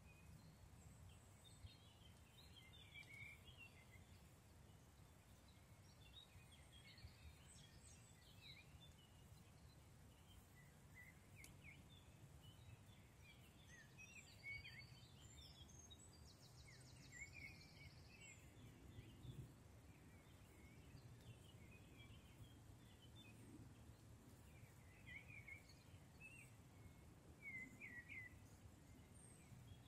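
Faint woodland birdsong: several birds giving scattered short chirps and trills over a low, steady rumble.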